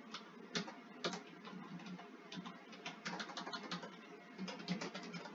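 Faint clicking at a computer keyboard and mouse: irregular single keystrokes, with quicker runs of typing about three seconds in and again near the end.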